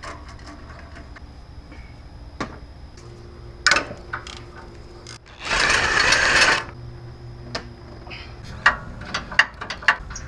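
Socket ratchet on a swivel and long extension working exhaust manifold bolts: scattered metal clicks and clinks, with one loud rasping burst of about a second near the middle and a quick run of sharp clinks near the end.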